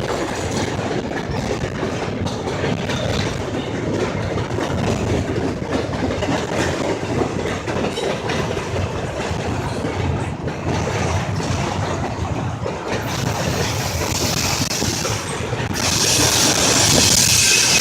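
Freight train rolling past, its steel wheels clattering steadily over the rail joints. The noise grows louder and harsher about sixteen seconds in.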